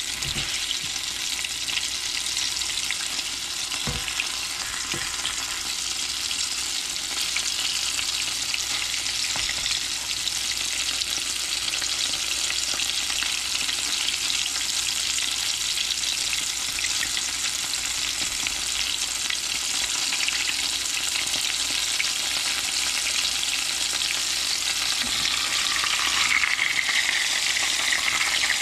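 Vegetable oil sizzling steadily around two biscuit-dough fried pies in a cast iron skillet.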